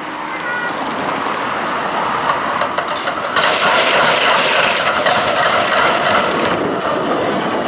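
Melbourne Z3-class tram rolling slowly across a tram-rail square crossing, its steel wheels rumbling and clicking over the crossing rails. It grows louder as it passes close, is loudest in the middle, with faint high squeaks, then eases off near the end.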